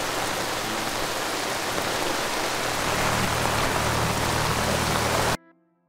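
Heavy rain pouring onto open water, a dense steady hiss that cuts off suddenly near the end.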